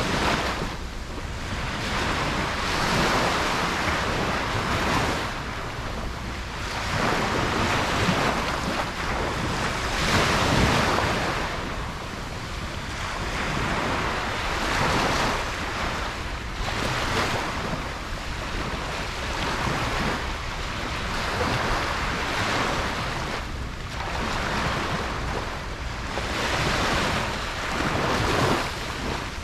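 Ocean waves breaking and washing up on a beach, a continuous surf that swells and falls back every few seconds, with wind rumble on the microphone.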